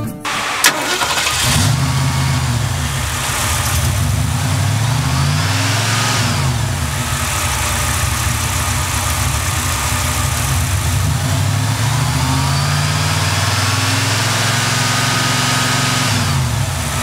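Willys wagon's rebuilt Ford 302 V8 starting up about half a second in, then running and revved slowly up and back down twice before settling to idle.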